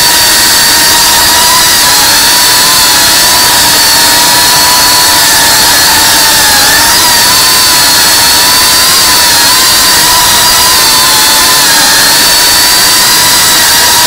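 FPV quadcopter's brushless motors and propellers whining steadily, the pitch wavering slightly up and down as the throttle changes.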